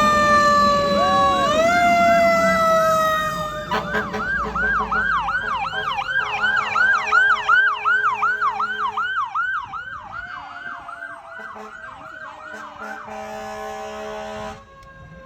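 Emergency vehicle sirens: a long wail slowly falling in pitch, switching about four seconds in to a fast yelp of about three sweeps a second, with a second, fainter wail underneath. The sirens grow fainter and the yelp stops near the end.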